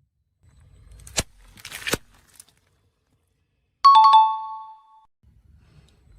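An object cracks and crunches twice under a car tyre, about one and two seconds in. Then comes a loud two-note electronic chime, a ding-dong sound effect that rings for about a second.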